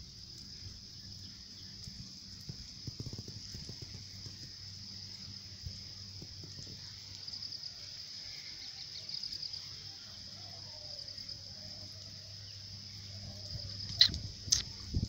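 Steady high-pitched chorus of insects, pulsing at times, over a faint low hum. Two sharp knocks sound near the end.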